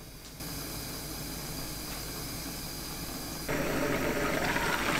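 Braising liquid of a mackerel and bracken stew boiling on high heat under a glass pan lid: a steady hiss that grows louder about three and a half seconds in.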